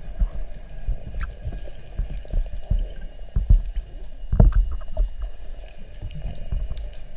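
Water sloshing and gurgling around a spearfisher in the sea, with irregular low thuds and one sharper knock about four and a half seconds in.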